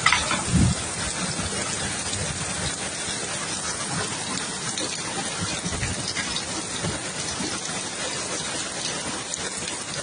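Steady rushing water noise, with a few brief knocks in the first second.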